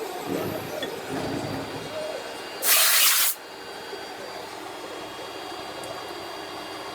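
A short blast of compressed air, a loud hiss lasting under a second about three seconds in, over a steady low machine-shop hum.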